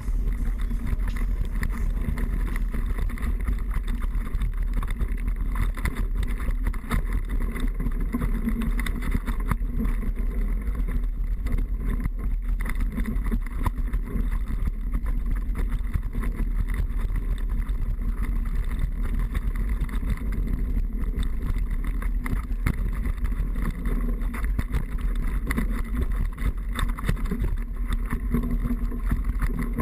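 Wind buffeting the microphone of a camera riding on a downhill mountain bike, over a steady stream of rattles and small knocks from the bike on rough ground.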